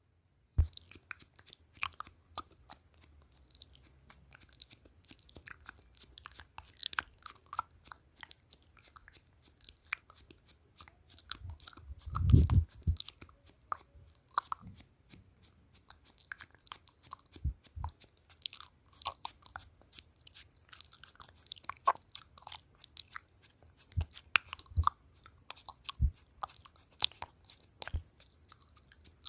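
Close-miked ASMR crackling and clicking: a rapid, irregular run of small crisp clicks and crinkles, with a dull thump about twelve seconds in and a few lighter knocks later.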